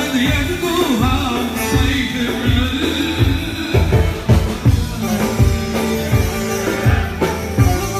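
Live band playing Middle Eastern dance music: electronic keyboard over a drum kit keeping a steady, driving beat, with a man singing.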